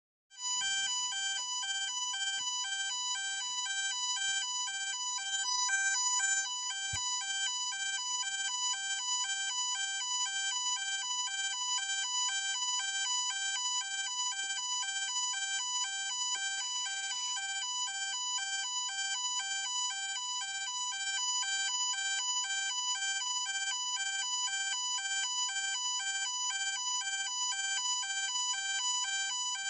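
Ambulance siren: an electronic two-tone siren switching rapidly and evenly between a high and a low note, starting about half a second in and holding steady.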